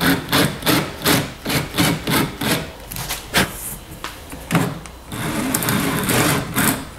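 Power drill with a 25/64-inch twist bit boring into a white laminated board, widening a pilot hole to full size. The drill runs in short pulses about three a second, then steadily for a second or so near the end.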